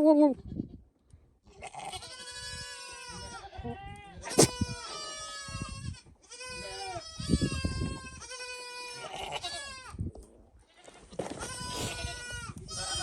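Goats bleating in a string of long, wavering calls with short gaps between them: a Nigerian Dwarf buck in rut courting the does while one is in heat. A single sharp click sounds about four seconds in.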